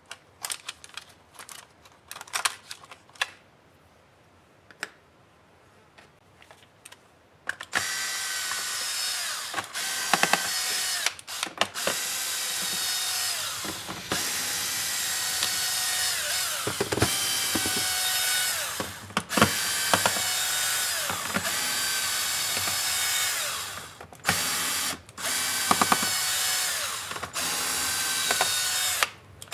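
For the first several seconds there are light clicks and taps. Then a cordless drill-driver runs in long spells, its motor whining as it works the screws out of the laptop's plastic bottom case. There are brief stops between screws, and the pitch sags now and then.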